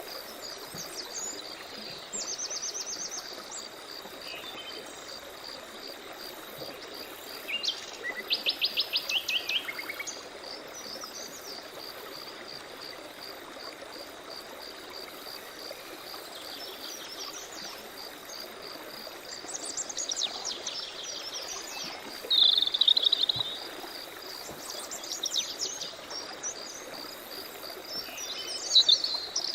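Several songbirds singing short phrases and fast trills over a steady, evenly pulsing high insect chirp and the hiss of a flowing stream.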